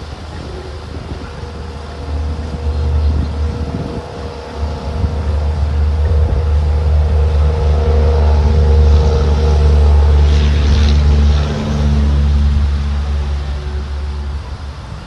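A motor vehicle's engine running as a low steady rumble. It builds over the first few seconds, is loudest in the middle, and eases off near the end.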